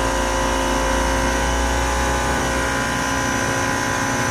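Compact electric pressure washer running steadily under load, its motor and pump giving a high, even whine while the gun sprays water against a car wheel.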